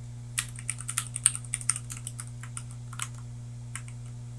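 Computer keyboard being typed on: a quick, irregular run of key clicks for about three seconds, then one or two more near the end, over a steady low hum.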